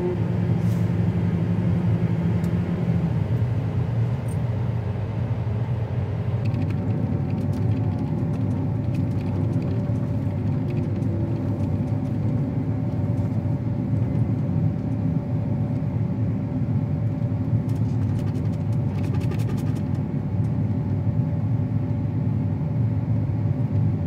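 Combine harvester running steadily while cutting, a constant low engine and machinery drone.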